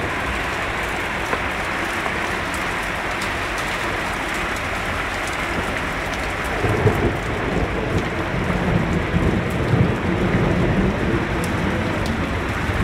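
Heavy rain pouring onto a flooded street: a steady, loud hiss of falling rain. About halfway through, a louder, uneven low rumble joins it and carries on.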